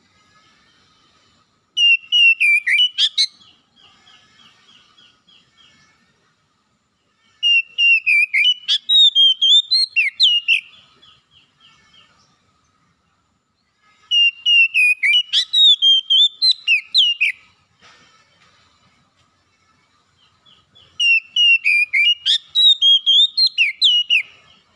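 Oriental magpie-robin (kacer) singing: four loud phrases of clear whistles mixed with quick high chirps, each two to three seconds long, with a few seconds' pause between them.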